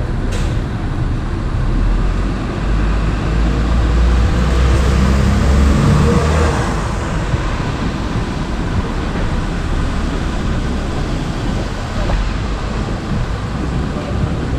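City street traffic: a motor vehicle passes, swelling about four to seven seconds in, over a steady low rumble and hiss.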